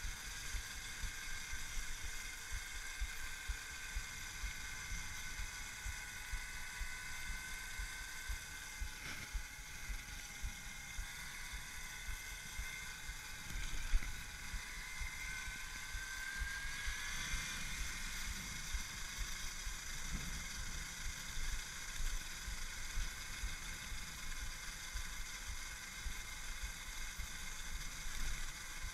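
Brushless electric motor and its controller on a converted Babetta moped, whining at several steady pitches that sag slightly and then climb again as road speed changes. Wind buffets the microphone underneath, with one short knock about fourteen seconds in.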